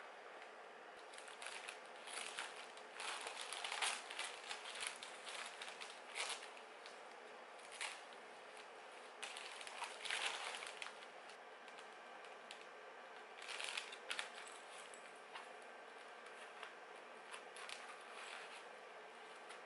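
Plastic packaging crinkling and a fabric organizer bag rustling as they are handled, in irregular short bursts.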